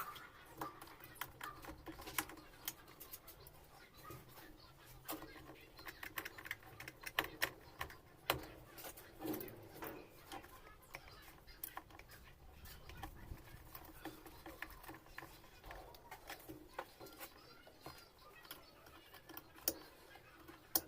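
Irregular clicks, taps and light knocks of small parts and tools being handled while a washing-machine mechanism is reassembled.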